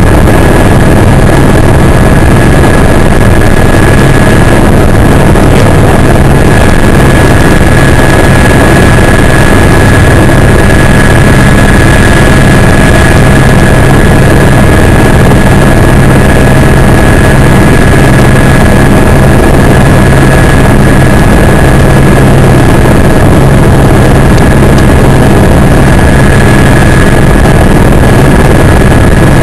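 Helicopter turbine and rotor running steadily and very loud, with a constant high whine over a deep hum.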